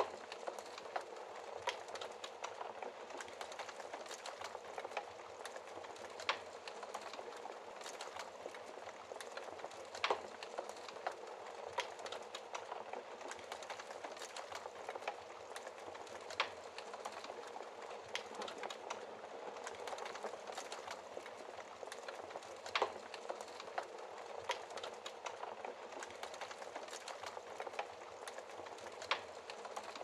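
Wood fire crackling on a fireplace grate: a steady soft hiss full of small crackles, with a handful of sharper, louder pops scattered through.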